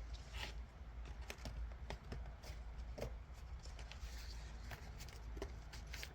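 Scattered light clicks and taps of a small motorcycle lock and a lockpicking tool being handled and repositioned, irregular and about a dozen in all, over a steady low hum.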